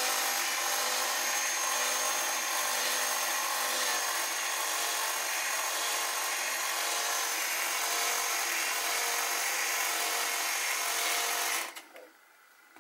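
Parkside cordless drill running steadily as a power feed, turning a milling machine table's feed screw through a push-on driving dog, with a steady motor-and-gearbox whine. It stops abruptly near the end.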